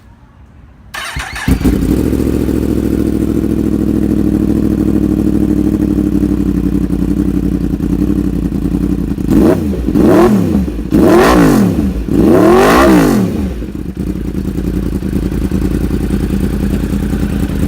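2018 Yamaha R1M's crossplane inline-four, breathing through an aftermarket Austin Racing exhaust, started about a second in and idling loudly. About ten seconds in it is blipped three times in quick succession, each rev rising and falling, before it settles back to idle.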